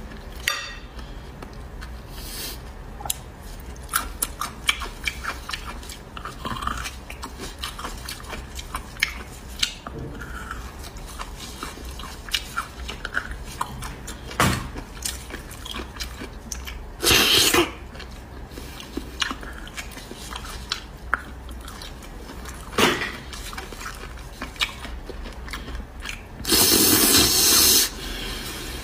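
Close-miked eating of beef bone marrow: wet chewing and mouth clicks, with scattered light clicks of a spoon and gloved fingers on the bones. Two loud, long slurps, about 17 s in and about 27 s in, as marrow is sucked out of a bone.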